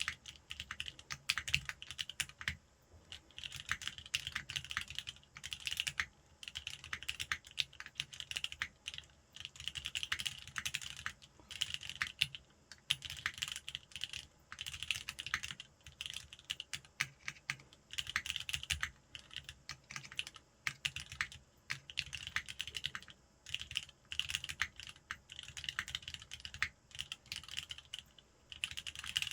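Typing on a custom mechanical keyboard with lubed Cherry MX Black linear switches on an aluminium plate: quick keystrokes in runs of a second or two with short pauses between.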